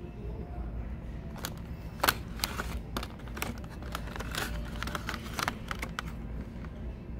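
Boxed hairbrush packaging being handled: a run of sharp clicks and taps of cardboard and plastic packaging, the loudest about two seconds in, over a steady low hum.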